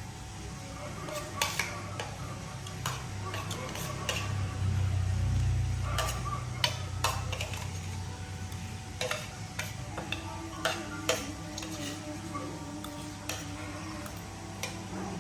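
Spoons and plates clinking irregularly as people eat, with scattered sharp clicks of cutlery on dishes over a low hum.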